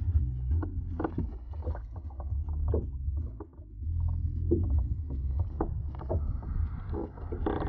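Water lapping against a small boat's hull over a steady low rumble, with scattered light knocks and splashes.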